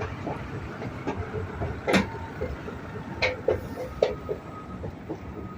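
Steady rumble of street traffic, broken by a few sharp knocks or clanks, the loudest about two seconds in and others about three and four seconds in.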